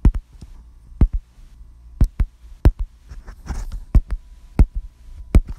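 Deep, sharp thumps, about one a second and some in close pairs like a heartbeat, over a faint steady hum.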